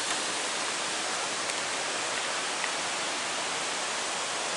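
Steady rushing of a waterfall and rocky creek: an even, unbroken water noise.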